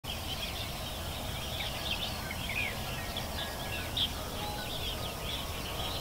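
Many small birds chirping and trilling together, a dawn chorus of quick overlapping calls, over a steady low background noise.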